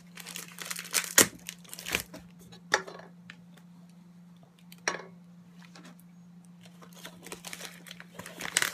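Parcel packaging being handled and cut open with a pocket knife: irregular rustling, crinkling and tearing with sharp clicks, busiest at the start and again near the end.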